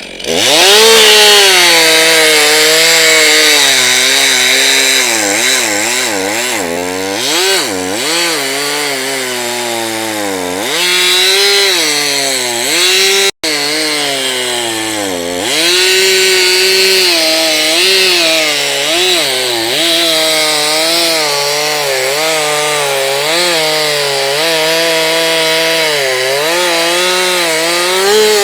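STIHL MS 362 C two-stroke chainsaw revving up and cutting through a log, pushed hard. Its engine pitch repeatedly sags under the load and recovers. The sound drops out for an instant about halfway through.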